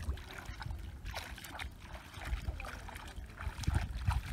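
Bare feet wading through shallow water, sloshing and splashing irregularly with each step.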